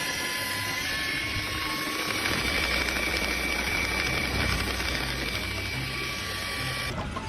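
A machine running steadily, a low hum under a high whine, cutting off about seven seconds in.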